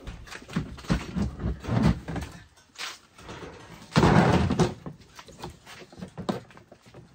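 Stored items and cardboard boxes being handled and set down: a run of knocks and thumps, with a louder scraping rustle about four seconds in.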